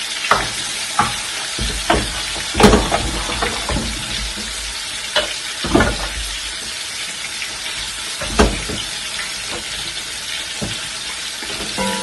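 Pieces of seasoned cow foot sizzling as they fry in hot oil in a steel pot, with a few sharp knocks as the pieces are turned with a wooden spoon, the loudest about two and a half seconds in.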